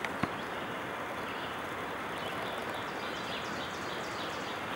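Steady outdoor background noise, an even rush, with a single click about a quarter second in and faint high bird chirps in the second half.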